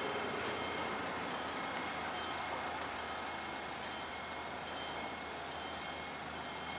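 Level-crossing warning bell ringing in regular strikes, a little more than one a second, while the barriers close: the signal that a train is approaching.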